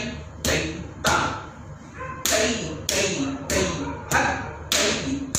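Bare feet stamping flat on a tiled floor in Bharatanatyam Tatta Adavu footwork, about eight sharp stamps in a steady beat. Short spoken rhythm syllables fall between the stamps.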